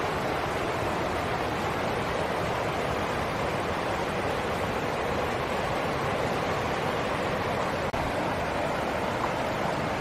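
Shallow stream rushing over rocks and small cascades: a steady, even rush of white water, with a split-second dip just before eight seconds in.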